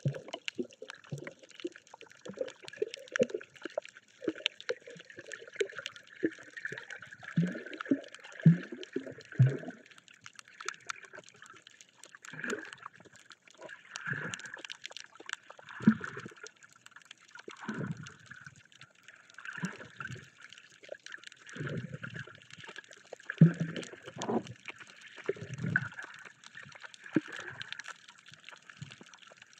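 Water noise picked up by a camera held underwater: irregular gurgling and sloshing with scattered faint clicks.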